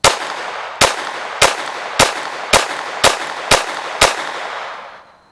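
Glock pistol with an Advantage Arms .22 LR conversion kit firing CCI AR Tactical .22 LR, eight shots at a steady pace of about two a second, each followed by an echo. The shooting stops after the eighth shot of a ten-round magazine because the pistol fails to eject, leaving a case stuck in the chamber.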